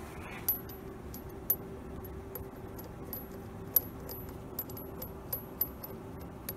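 Small metal clicks and clinks, about a dozen irregular light taps with a high ring, as a small screw is handled and fitted into the aluminium balancing disc on the rotor shaft. A steady hum runs underneath.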